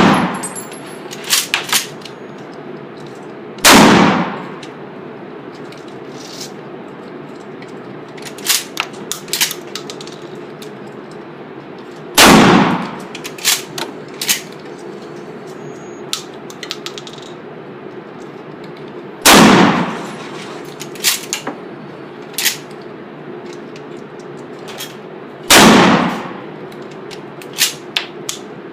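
Pistol-grip shotgun fired four times, several seconds apart. Each loud shot is followed a moment later by a few quick metallic clacks.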